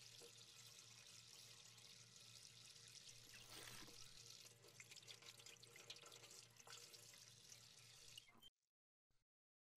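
Faint water running from a bathroom tap into a sink while hands are washed under the stream. It cuts off suddenly about eight and a half seconds in.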